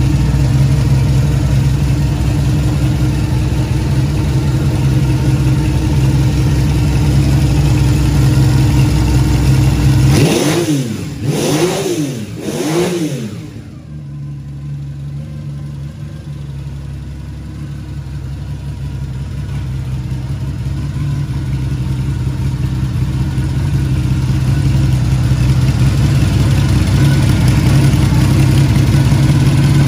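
Benelli 750 Sei inline six-cylinder motorcycle engine idling steadily. About ten seconds in, the throttle is blipped three times in quick succession, each rev rising and falling, before the engine settles back to idle. The idle sounds quieter after that and grows louder again toward the end as the exhausts come close.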